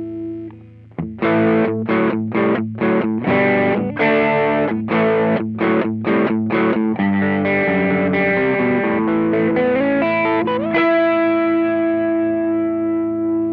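Electric guitar played through an Ibanez Tube Screamer overdrive pedal: a held chord, then a run of short chord strokes, then sustained notes, one bent upward near the end, and a final chord left ringing.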